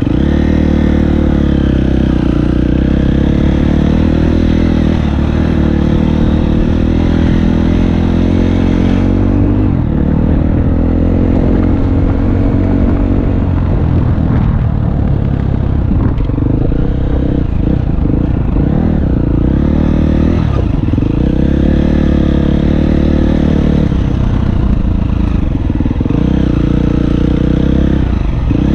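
Enduro dirt bike engine running at riding speed close to a helmet-mounted camera, its pitch rising and falling again and again as the throttle is worked, with a few short clattering knocks from the bike over bumps.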